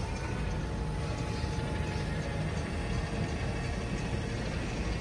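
Small battery-electric vehicle chassis driving on asphalt: a steady low rumble from the tyres and drive with a faint, even electric motor whine.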